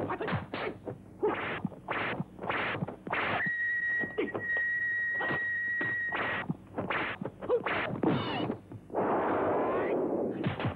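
Kung fu fight sound effects: a rapid string of punch and kick thwacks, about three a second. A single high steady tone is held for about three seconds in the middle, and a short rush of hissing noise comes near the end.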